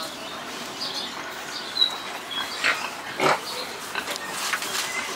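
Short animal calls, a few of them, the two loudest a little past the middle, with a brief high chirp shortly before them.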